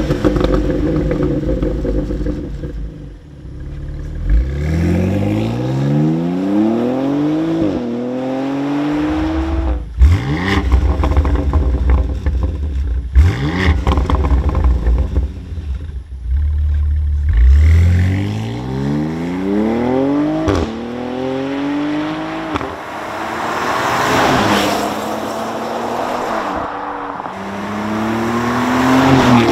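BMW X3 M's twin-turbo straight-six revved at standstill through its valved exhaust, first the stock system and then a Dinan axle-back with 76 mm tubing, valves open: sharp throttle blips and several long climbs in revs that fall away. Near the end the SUV is driven with the Dinan valves shut, the engine note rising again.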